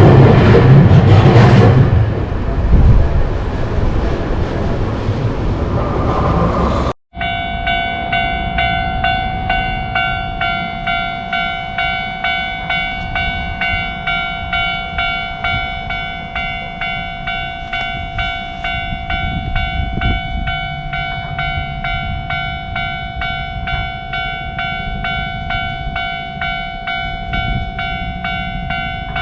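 A train running past at close range, loud and noisy, then an abrupt cut to a Japanese level-crossing's electronic warning bell ringing: a repeating clang that sounds steadily without pause.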